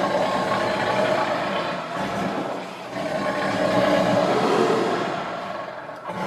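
Tiger growling: two long, rough growls, the second beginning about three seconds in and fading near the end.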